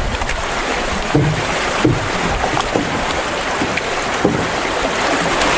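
Fast river current rushing over a shallow, rippling stretch close to the microphone: a steady hiss of moving water with small gurgles and sloshes now and then.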